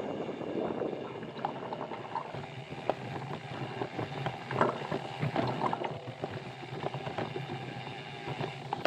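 Mountain bike rolling over a rough trail: a steady rush of tyre noise with scattered clicks and knocks from the bike rattling, and wind on the microphone.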